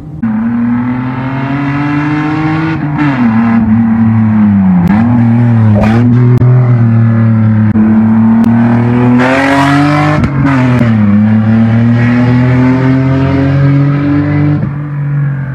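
BMW Z3 2.8i's straight-six with its exhaust line cut, approaching hard under acceleration, very loud. The engine note climbs and drops sharply several times.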